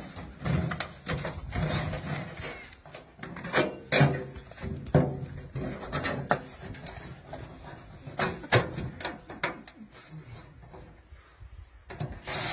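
Irregular metallic clanks and knocks as a steel wheelbarrow is handled and its wheel taken off and refitted in a hurry, with scuffling on dirt.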